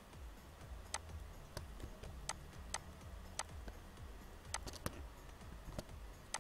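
Computer mouse and keyboard clicks: about ten sharp, short clicks at uneven intervals, including a quick run of three a little past the middle, over a low steady hum.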